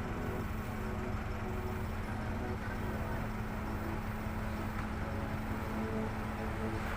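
Steady low engine rumble with a constant hum, unchanging.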